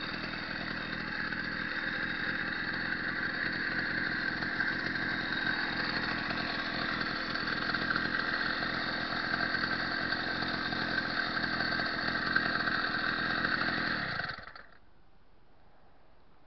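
Two-stroke motorized-bicycle kit engine idling steadily, then stopping abruptly about fourteen and a half seconds in.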